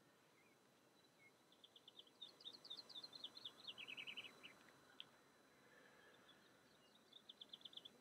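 A small songbird singing faintly: a fast trill of short, high, evenly spaced notes lasting a few seconds, then a second shorter trill near the end.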